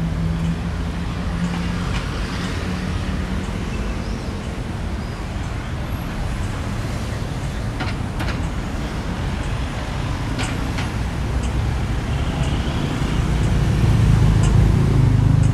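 Road traffic at a busy city intersection: cars, taxis and motor scooters passing, with a steady rumble that grows louder near the end as a car drives close by.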